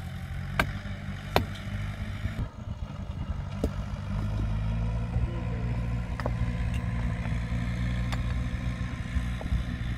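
Tractor diesel engine running steadily, getting louder about four seconds in, with a few sharp knocks over it.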